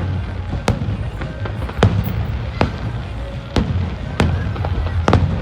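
Fireworks shells bursting in a steady barrage: about six sharp bangs roughly a second apart, each trailing off in a short echo, over a continuous low rumble.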